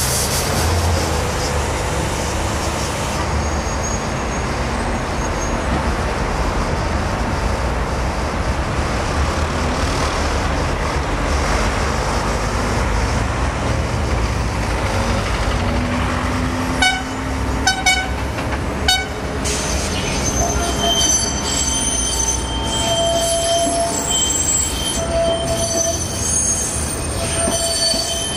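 Street traffic around an electric tram, with a steady low rumble. About two-thirds of the way in come three short horn toots. After them the tram's wheels squeal on the curving track in steady high tones.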